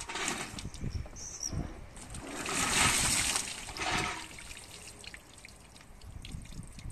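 Water pouring and splashing out of a tipped plastic bucket, a rush lasting about two seconds and loudest about three seconds in, with lighter dribbles and splashes before it.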